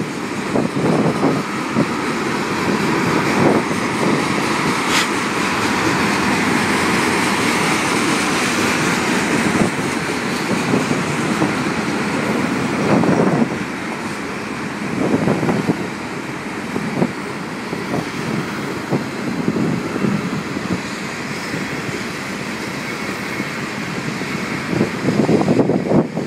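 Freight train of tank cars rolling past, steel wheels rumbling along the rails with irregular clicks and clatter.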